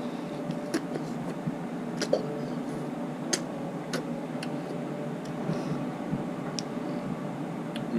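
Mouth sounds of someone eating a strawberry ice cream bar: a few short, scattered smacks and clicks over a steady background hum.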